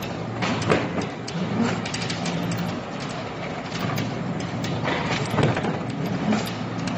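KSWL1120 film laminating machine running as corrugated cardboard sheets feed through its rollers: a steady low hum under a noisy factory din, with scattered knocks and clatter, the loudest about a second in and another about five and a half seconds in.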